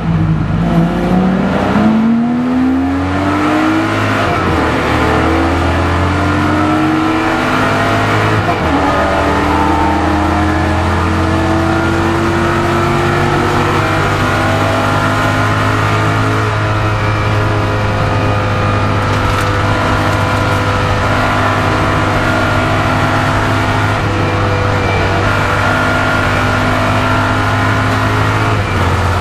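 Onboard sound of a Camaro race car's V8 at racing speed. The engine note climbs steeply in the first few seconds and changes gear about eight and a half seconds in, then holds nearly steady at high revs.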